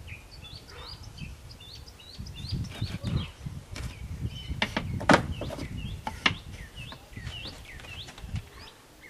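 Wooden birdhouse boards being handled and fitted together, with rumbling handling noise and a few sharp knocks about five to six seconds in. Wild songbirds chirp over it throughout.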